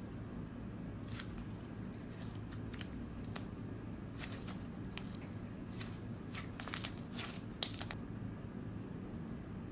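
Slime being squeezed and pressed by hand, giving scattered small clicks and crackling pops, most of them bunched together about six to eight seconds in, over a steady low hum.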